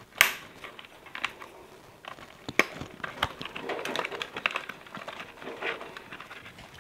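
Side cutters snipping through the copper wires of a washing machine wiring harness, with a sharp snip about a quarter second in, then scattered smaller clicks and the rustle of the cut wires being handled.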